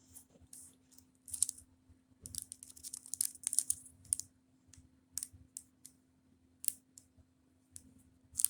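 Quick, light clicks and taps in irregular clusters, like typing or handling something by hand, over a faint steady low hum.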